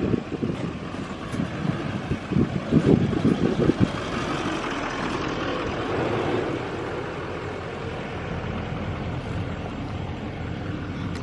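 A motor vehicle running and moving, a steady engine-and-road noise, with a few heavier rumbles in the first few seconds.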